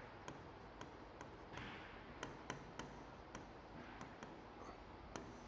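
Faint writing on a board: soft scratchy strokes of the writing tip, broken by a dozen or so light clicks as the tip touches down and lifts off.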